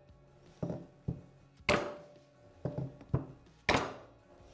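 Plastic mallet striking a second plastic mallet that is held on the end of a valve stem in a KTM 690 / Husqvarna 701 cylinder head, knocking the valve open against its spring to seat the keepers. There are two sharp strikes, about two seconds apart, with lighter knocks between them.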